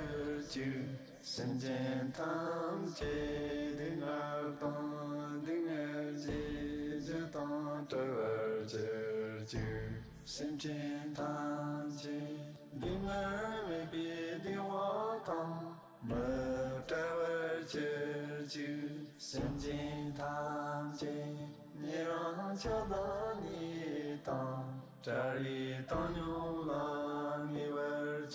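A chanted mantra sung in long held phrases with short pauses between them, over a steady low drone.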